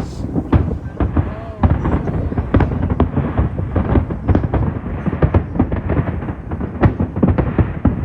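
Aerial fireworks going off in a dense, rapid barrage: loud bangs and crackles overlapping, several a second, without a break.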